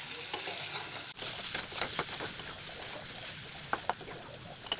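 Chicken pieces frying dry in oil with ground spices in a pan: a steady sizzle with scattered sharp pops and crackles.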